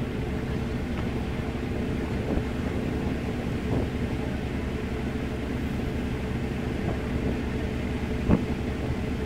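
A boat engine running with a steady low drone, with a sharp knock near the end.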